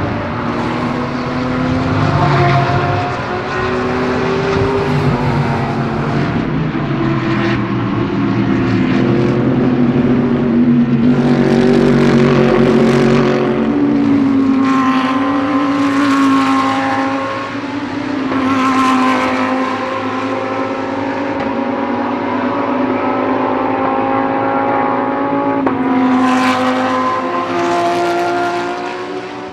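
Several GT3 race cars driving past one after another at racing speed, their engines running at high revs, the engine note rising and falling as each car goes by.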